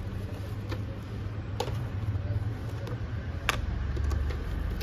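Art supplies being handled and set down on a whiteboard: a few sharp, isolated clicks and taps from the plastic watercolour palette, sketchbook and paintbrush, the loudest about three and a half seconds in, over a steady low hum.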